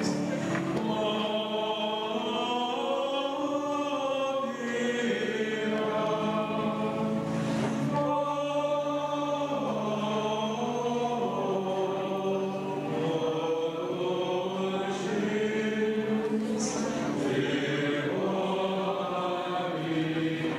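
A choir singing a slow chant, several voices holding long notes together.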